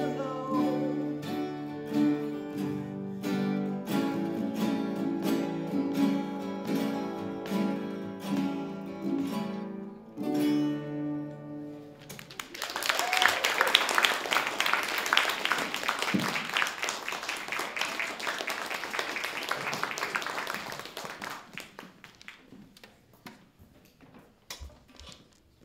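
Two acoustic guitars strumming the end of a song, closing on a held chord about eleven seconds in. Audience applause follows for about nine seconds and fades out. A few faint knocks come near the end.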